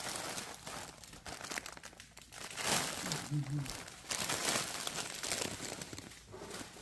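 Plastic snack packaging crinkling and rustling as it is handled, in uneven bursts, loudest about a third of the way in and again just past the middle.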